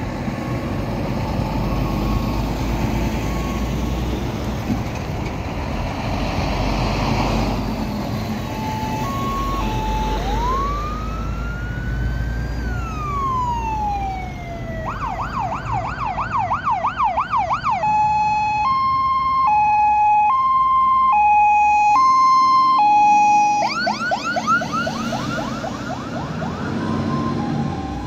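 Mercedes-Benz Atego fire engine's electronic siren changing modes as it sets off: about ten seconds in, one slow rising and falling wail, then a fast yelp, then a two-tone hi-lo, then the fast yelp again near the end. Before the siren starts, heavy diesel traffic rumbles past.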